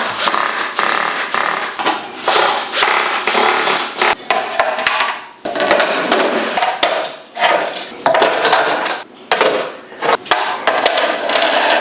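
Hammering, knocking and scraping of tools and wooden panels while flat-pack furniture is put together, in irregular bursts with short pauses.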